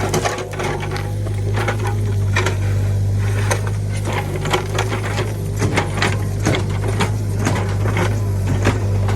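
Small excavator's engine running steadily under load, with irregular knocks and clanks as the machine works the dirt.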